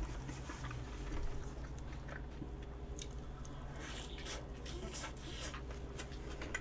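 A person chewing and biting food close to the microphone, with scattered short, soft crackles in the second half.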